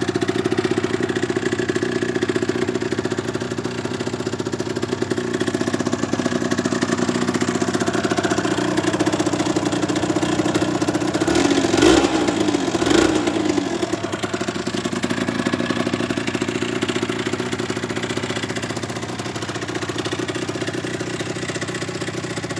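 Suzuki RG125's single-cylinder two-stroke engine idling through its stock (OEM) exhaust, with two short throttle blips about halfway through.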